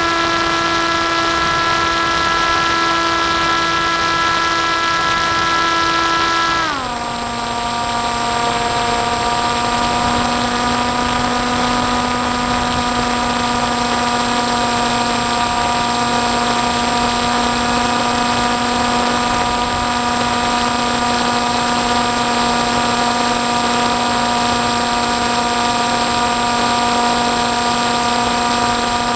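Electric motor and propeller of an FPV model aircraft running steadily over a constant rush of air, heard from the on-board camera. About a quarter of the way in, the whine drops quickly in pitch as the throttle is eased back, then holds at the lower pitch.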